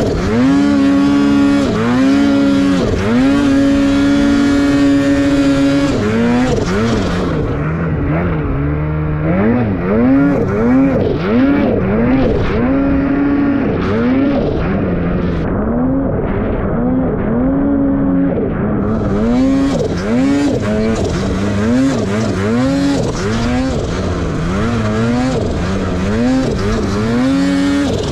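Turbocharged two-stroke mountain snowmobile engine running hard through deep powder. The revs are held high for the first several seconds, then the throttle is worked on and off so the pitch swells up and drops back about once a second.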